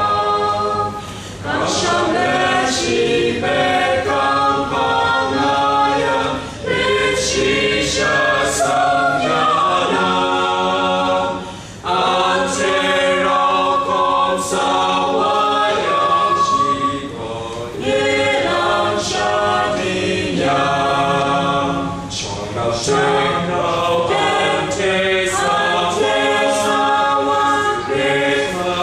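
A small mixed choir of men and women singing a cappella in harmony, in phrases with short breaths between them.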